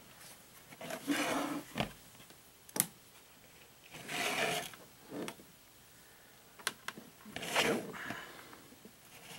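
Hollow plastic pumpkin shell being handled and turned on a countertop: several bursts of rubbing and scraping, with a few sharp clicks between them.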